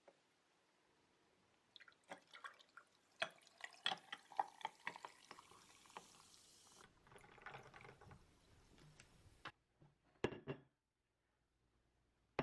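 Lemon-lime soda poured from a plastic bottle over ice into a glass, fizzing with the ice cubes clicking and crackling for several seconds. A single knock follows near the end.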